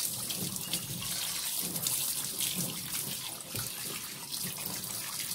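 Kitchen tap running into a stainless steel sink as a boneless milkfish (bangus) is rinsed under the stream by hand. It is a steady rush of water with uneven splashing as the hands move the fish.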